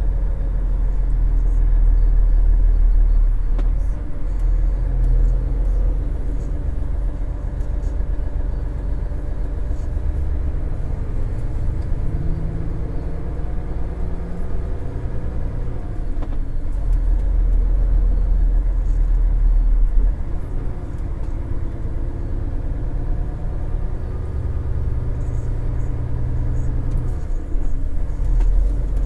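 Truck engine and road noise while driving slowly: a steady low rumble with a faint engine hum that drifts up and down in pitch.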